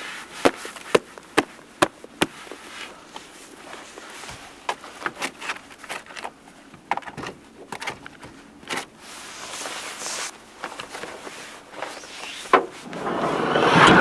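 Five sharp knocks in quick succession as a pair of boots are knocked together, followed by scattered clicks and rustling of footwear and clothing being handled. Near the end a van's sliding side door rolls shut, growing louder, and stops with a bang.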